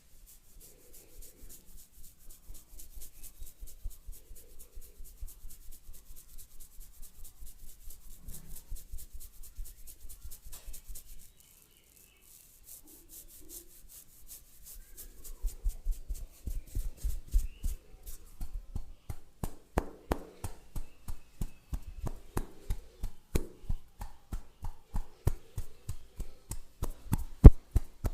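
Hands massaging a person's head: quick rhythmic rubbing strokes, about three a second. After a short pause near the middle, firmer strokes with dull thuds follow, and one is much louder near the end.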